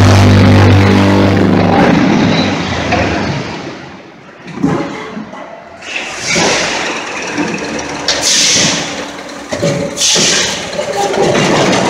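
Concrete block production line machinery: a loud steady hum stops about two seconds in, followed by irregular metal clanks and knocks and several short bursts of hiss as the board stacker and vibropress work. The loud running noise starts up again near the end.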